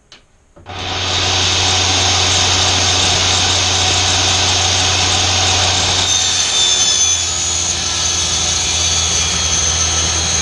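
Small benchtop table saw switched on about half a second in and running steadily. About six seconds in the blade starts cutting into a wooden board, adding a higher whine as the motor takes the load.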